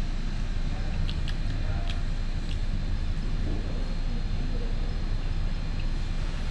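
Steady low rumble of restaurant room noise, with a few faint light clicks in the first few seconds.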